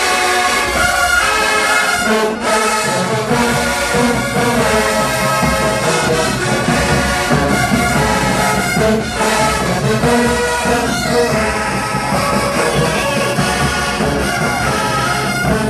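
HBCU marching band brass section playing loudly, trumpets and trombones in full harmony; the low brass comes in about two seconds in and carries the rest of the passage.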